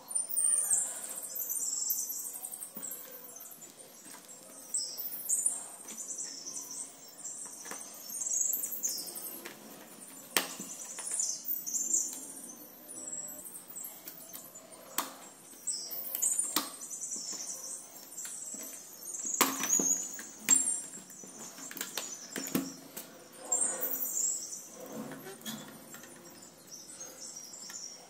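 Rubber-gloved hands rustling and scraping against the black plastic frame of a Lenovo ThinkPad R61i laptop as it is taken apart, with several clicks of plastic parts knocking or snapping.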